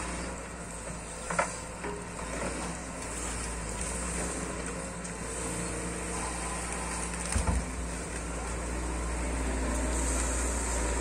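Sany SY215C hydraulic excavator's diesel engine running steadily as it digs a muddy ditch, with a couple of sharp knocks from the bucket and the engine growing louder near the end as the boom lifts a load of mud and roots.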